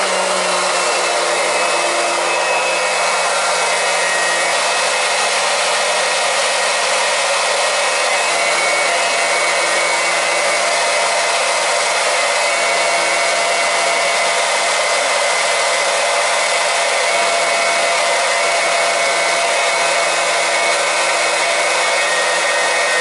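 Portable electric transfer pump running at a constant pitch, a hum under a loud whir, as it pumps propylene glycol antifreeze from a bucket into a boiler's heating zones to purge the air out.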